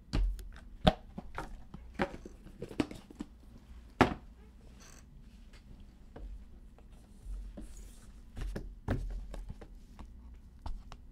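Trading cards and their packaging being handled on a tabletop: a scatter of light taps and clicks, with two sharper knocks about one and four seconds in.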